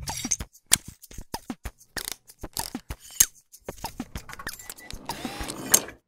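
Sound effects for an animated title: a quick, irregular run of sharp mechanical clicks and ticks, with a few short falling blips among them.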